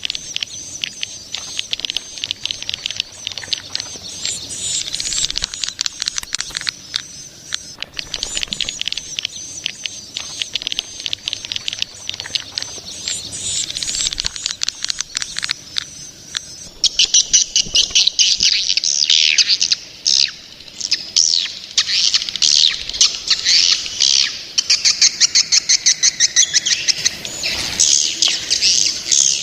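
Juvenile swiftlets calling: a dense chatter of rapid high clicking chirps over a thin steady high tone, changing to louder, fuller chirps repeated quickly about two-thirds of the way through.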